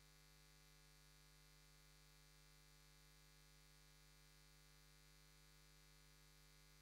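Near silence: the soundtrack has dropped out, leaving only a faint steady hum.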